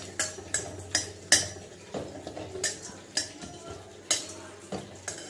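Metal spatula scraping and clinking against a metal kadai as whole spices are stirred and dry-roasted without oil, in repeated sharp strokes about two a second.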